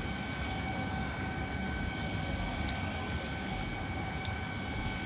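Wood fire burning under a pot on a firewood stove: a steady rushing rumble with a few small crackles, and one sharp click right at the end.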